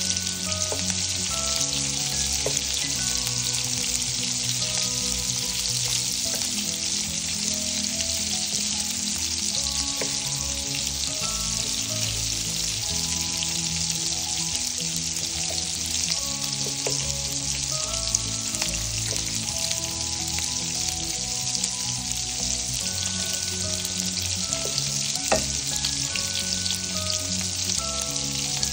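Sliced sausage pieces sizzling steadily in hot oil in a frying pan as a spatula stirs them, with a few light knocks of the spatula against the pan.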